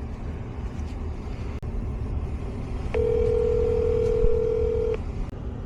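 Telephone ringback tone through a phone's speaker: a single two-second ring, heard about three seconds in, from a call that rings without being answered. A steady low rumble runs underneath.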